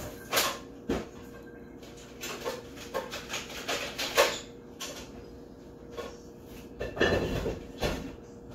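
Kitchen rummaging: irregular knocks, clacks and short rustles of things being handled and set down, with the loudest around the middle and again near the end, over a faint steady hum.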